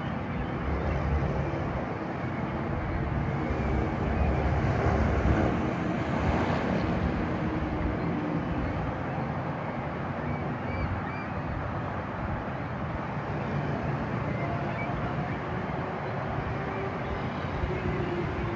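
Large ship's diesel engine droning steadily as it passes, a low hum under a wash of wind and water noise, swelling a little around the fourth to seventh second.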